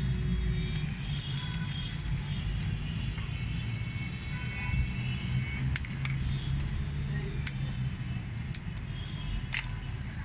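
Steady low rumble of distant traffic, with a few sharp clicks in the second half as hands work the sweet potato cuttings into the soil.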